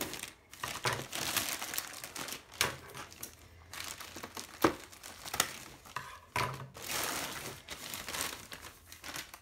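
A shipping package being opened by hand: irregular crinkling and tearing of the packaging, with a few sharp snaps.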